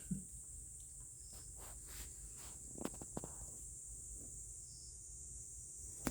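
Insects shrilling in a steady, high-pitched chorus, with a few soft knocks and scuffs just after the start and again around three seconds in.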